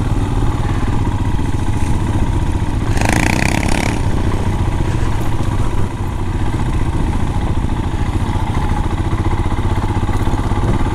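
A Royal Enfield motorcycle engine running steadily at a low cruise, heard from the rider's own bike, with tyres on a loose gravel track. A brief rushing noise comes about three seconds in.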